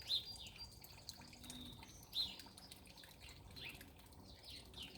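Small birds chirping: a scatter of short, high notes, the loudest right at the start and about two seconds in.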